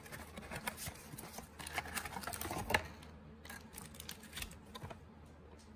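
Trading cards and card packs being handled: light, irregular rustling and tapping.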